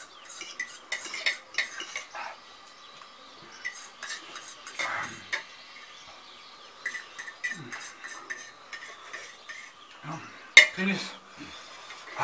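Metal forks scraping and clicking against plates as two people eat noodles quickly, in quick, irregular strokes. A sharper, louder clatter comes near the end.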